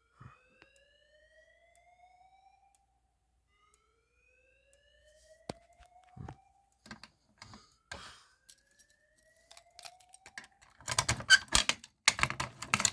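Fire alarm slow-whoop tone played through a computer speaker, sweeping upward in pitch three times, about every four seconds. Scattered clicks come in about halfway, and loud clattering near the end is the loudest sound.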